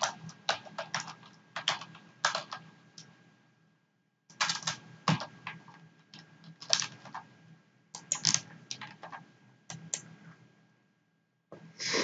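Computer keyboard typing in quick runs of keystrokes, pausing for about a second some three seconds in, then falling quiet near the end.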